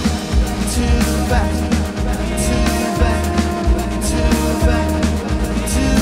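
Live band playing with drum kit, electric bass and keyboards over a steady beat.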